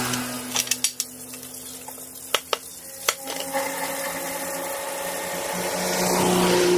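A handful of sharp knocks, like a meat cleaver set down on a round wooden chopping block: three in the first second, then three more around two to three seconds in. A steady mechanical hum runs underneath.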